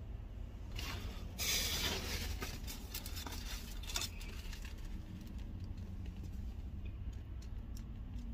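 Rustling and crinkling of a takeout food container and bag being handled, loudest in a burst about a second and a half in, with a few sharp clicks, over a low steady rumble.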